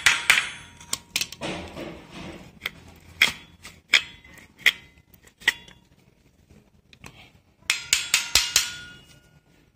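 Pliers tapping on the brake shoes of a bike's drum-brake backing plate to seat them: sharp metallic taps with a ringing tone, a quick run at the start, scattered taps and clinks through the middle, a pause, then another quick run near the end.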